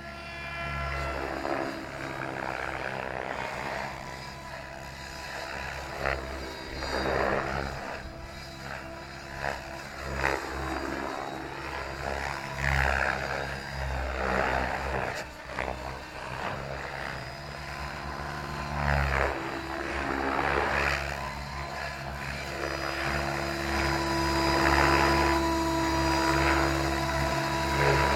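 Radio-controlled 3D helicopter in flight: the rotor and motor sound swells and falls repeatedly with the manoeuvres and grows louder near the end as the helicopter comes in low and close.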